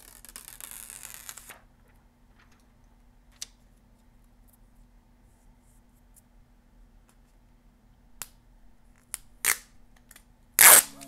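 Protective plastic film being peeled off a new smartphone: a crackling peel off the screen for the first second and a half, then a few faint clicks, then short, loud rips near the end as the film and label sticker come off the back.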